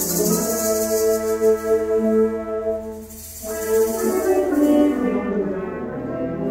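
Concert band of woodwinds and brass playing sustained chords, with a brief lull about three seconds in. A high shimmer sounds over the first couple of seconds and fades out.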